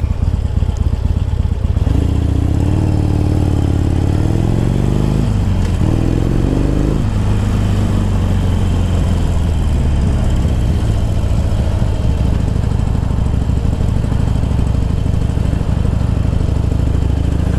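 Harley-Davidson Iron V-twin with Screamin' Eagle slip-on exhausts, heard while riding. Its note climbs in pitch, drops back about five and a half seconds in, climbs again, then holds steady.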